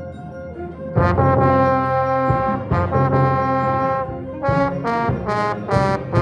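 Band with trombones prominent playing the coda: a soft held passage, a loud full entry about a second in, then four short accented chords leading to the final cutoff.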